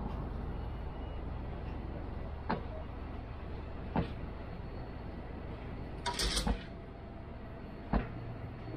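Freight train of covered bogie hopper wagons rolling slowly past: a steady low rumble with a few sharp metallic clanks from the wheels, about two and a half, four and eight seconds in, and a short metallic screech a little after the middle.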